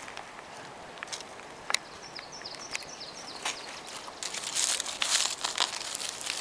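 Dry leaf litter and twigs crackling and rustling as fingers dig in around a black morel to pick it, loudest from about four seconds in. A few sharp twig clicks come earlier, with a short run of high falling chirps about two seconds in.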